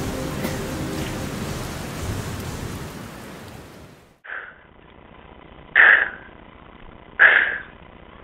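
Background music fades out over about four seconds. After it come three short, loud bursts of sound about a second and a half apart.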